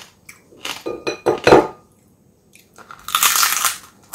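Crispy roast pig skin crunching as it is bitten and chewed close to the microphone: a cluster of crackly crunches about a second in, then a longer dense crunch near the end.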